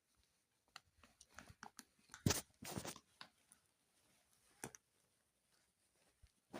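Faint clicks and crackling rustles from handling snack food, with two louder crackly bursts about two to three seconds in.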